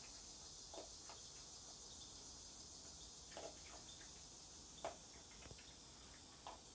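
Faint steady high hiss of insects, with a few soft crunches as a raccoon chews dry cat food; the loudest crunch comes about five seconds in.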